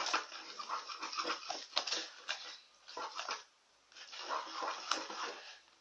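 Slime being stirred and worked in a pot, wet squishing and crackling in two stretches with a short pause a little past halfway. The slime has just had activator added and is starting to come away from the sides of the pot.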